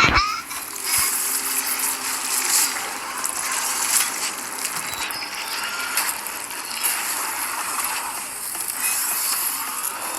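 Dense mechanical clicking and rattling, like ratchets and gears, running steadily with a few sharper clicks. This is sound-effect audio from an animated episode's soundtrack.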